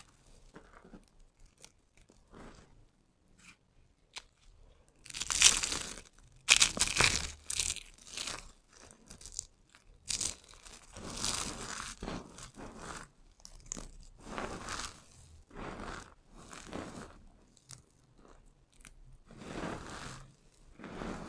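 Crunchy soap cubes and strips crushed by hand, the pieces crackling and crunching as the fingers squeeze them. After a few seconds of faint small crackles come the loudest crunches, about five to seven seconds in, then a run of shorter crunches roughly one a second.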